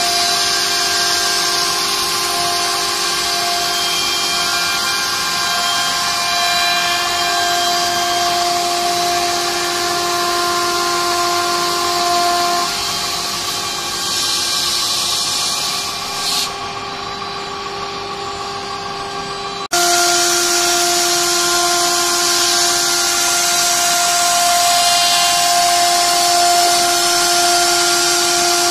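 CNC router spindle running with a steady whine of several tones while its bit cuts aluminium composite panel, with a high hiss of cutting over it. The hiss drops away about sixteen seconds in, then the sound breaks off and resumes abruptly a few seconds later.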